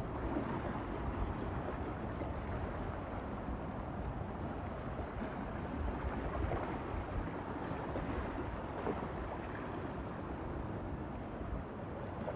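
Steady rush of ocean water and wind, an even noise with no single wave crash standing out.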